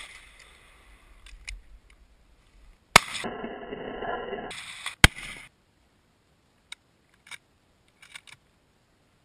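Gunfire: the fading echo of a shot, then two sharp gunshot reports about two seconds apart with a noisy rush between them. A few faint clicks follow.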